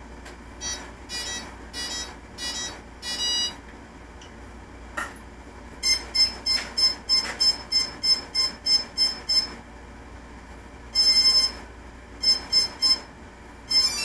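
Electronic status beeps from a HobbyKing Nova quadcopter. First a few separate tones, then a quick run of about a dozen short beeps at about three a second, a longer beep, and three more short beeps near the end. The beeps come as the quad is being armed, which it does unreliably.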